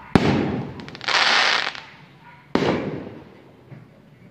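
Aerial fireworks shells: a sharp bang just after the start, then a loud hissing rush about a second in, then another sharp bang with a fading tail about two and a half seconds in.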